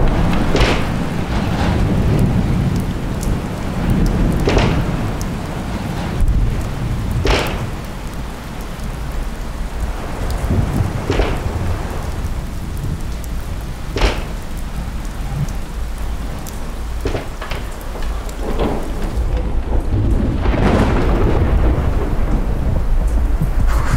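Thunderstorm: steady heavy rain with sharp cracks of thunder every few seconds over a continuous low rumble.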